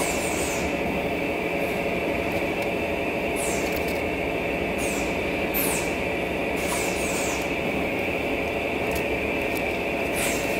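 Chewing and wet mouth smacking from a mouthful of burrito close to the microphone, in short sharp bursts about every second or so. Behind it is a steady mechanical drone with a high whine.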